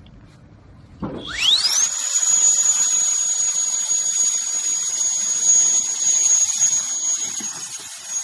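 Mini handheld turbo jet blower's brushless motor spinning up with a fast rising whine about a second in, then running flat out with a steady high-pitched whine over the rush of air.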